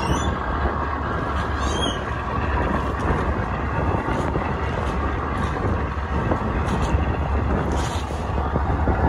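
Boat engine running steadily, a continuous low drone mixed with the rush of water and wind.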